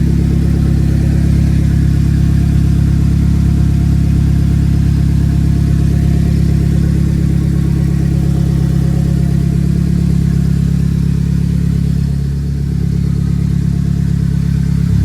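Toyota Tacoma's turbocharged 2RZ four-cylinder engine running steadily, with a slight dip in level about twelve seconds in.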